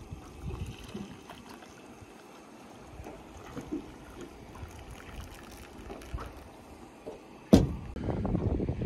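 Coffee pouring from a stainless steel French press into an enamel mug, over the low wash of water around the boat. Near the end a sharp knock, the loudest sound, is followed by a louder rush of noise.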